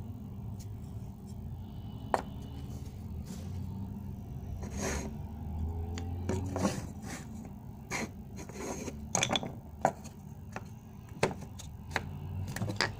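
Painted wooden nesting-doll shells being handled: scattered wooden clicks, knocks and light scrapes as the halves are pulled apart, fitted together and set on a tabletop, coming more often in the second half. A low steady hum runs underneath.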